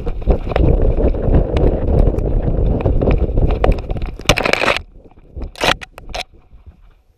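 Bumping and rustling noise of a GoPro on a running dog's harness: continuous jostling knocks and brushing through grass and undergrowth. It stops about five seconds in, followed by a few short sharp scrapes.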